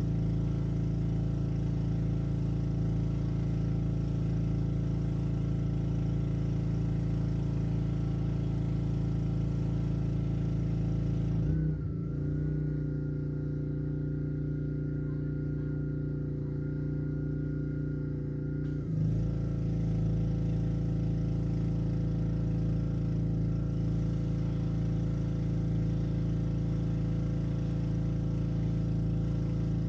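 Honda small engine of a Black Max pressure washer running steadily. For about seven seconds in the middle the engine note shifts and the higher hiss cuts out, then both come back abruptly.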